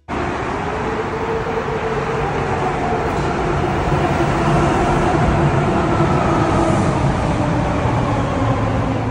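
BART Fleet of the Future train pulling into a station platform: wheels on rail and traction motors running loud, with a whine of several tones that slowly fall in pitch as the train slows.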